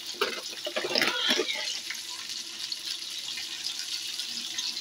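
Cauliflower florets frying in hot oil in a kadhai, a steady crackling sizzle.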